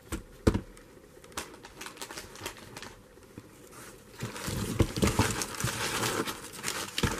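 Packaging and produce rustling and crinkling as they are handled inside a cardboard box, with a few light knocks. The rustling grows denser and louder about four seconds in.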